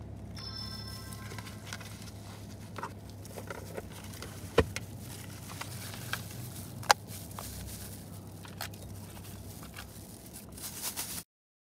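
Handling and eating noises: a paper food box and plastic-gloved hands rustling and clicking, over a steady low hum inside the car. Two sharp clicks about halfway through are the loudest sounds, and the sound cuts to silence just before the end.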